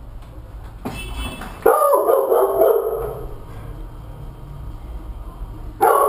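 A dog barking: a quick run of barks about two seconds in, and another run near the end.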